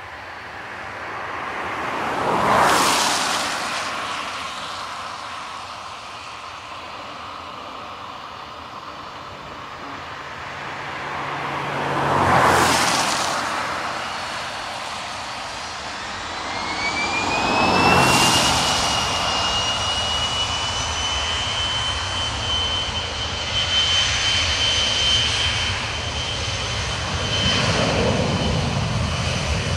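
Boeing 737-400's CFM56 jet engines spooling up for takeoff: a whine rises a little past halfway and then holds steady over a low rumble. Before and during this, three loud rushes of noise each swell and fade over a few seconds.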